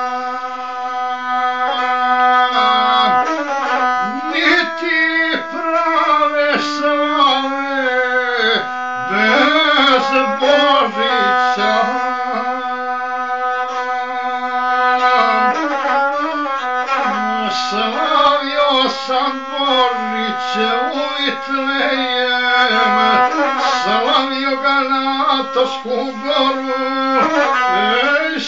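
Gusle, the single-string bowed Balkan folk fiddle, playing a continuous, heavily ornamented melody with wavering pitch over a steadily held note.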